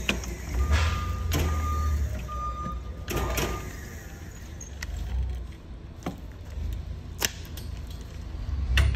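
Low steady machine rumble with a series of sharp clicks and taps as black nylon tubing is handled on a wooden cable reel. A faint high whine runs through the first few seconds.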